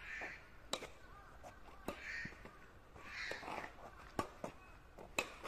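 Badminton rally: four sharp pops of rackets striking a shuttlecock, the loudest sounds, with a bird giving three short harsh calls between them.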